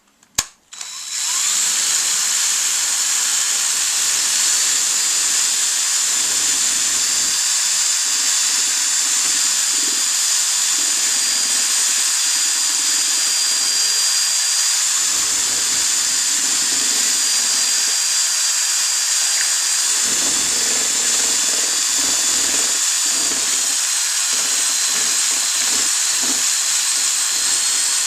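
Electric drill spinning a paint-stirrer paddle in a tin of paint, mixing it thoroughly. After a brief stop in the first second, it runs steadily as a continuous whine.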